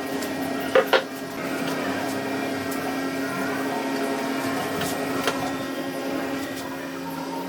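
A power tool's electric motor running steadily with a constant hum, with two sharp knocks about a second in and another at about five seconds.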